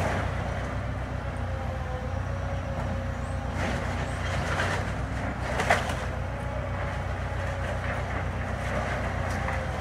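Excavator's diesel engine running steadily, with a few knocks and cracks of barn timber and debris as it works into the barn, the sharpest about halfway through.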